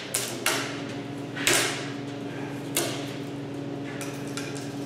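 A few sharp knocks and clacks of hand tools and boards being handled on a wooden workbench, the loudest about a second and a half in with a short ringing tail, then a few light ticks. A steady low hum runs underneath.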